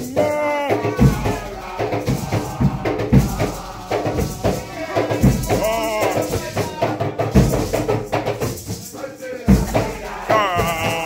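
Nyahbinghi chant: a group singing with Nyahbinghi hand drums beating under the voices.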